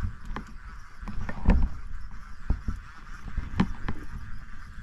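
Irregular knocks and clicks of a jigging rod and reel being worked against a hooked fish on a boat's bow, over a steady hiss. The loudest knocks come about one and a half seconds in and about three and a half seconds in.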